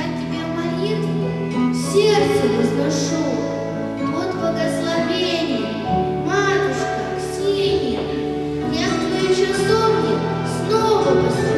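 A girl singing a spiritual song over a backing accompaniment of long held chords; the chords change about two and six seconds in.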